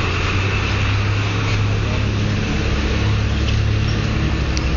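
A motor vehicle engine running with a steady low hum over street noise, with a couple of faint clicks near the end.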